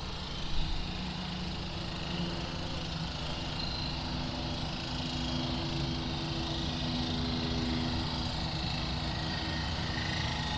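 Steady drone of highway traffic, with a low engine hum running under it.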